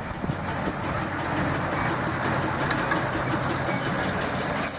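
Small diesel shunting locomotive and brake van passing close by: the engine running, with the wheels rumbling and clattering on the rails.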